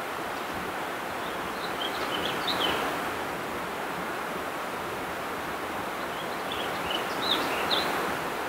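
A small songbird singing two short, quick chirping phrases, about two seconds in and again near seven seconds, over a steady rushing background noise.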